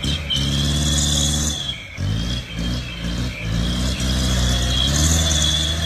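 Diesel engine of a loaded light truck running under load, its note dropping and dipping about two seconds in and then picking up again and holding steady.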